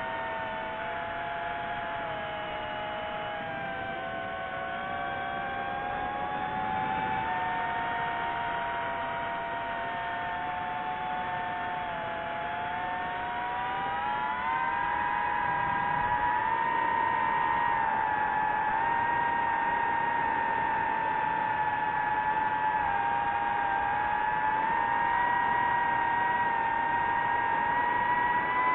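Multirotor camera drone's propellers whining steadily, several close pitches drifting slowly up and down as it flies. About halfway through the whine rises slightly in pitch and gets louder.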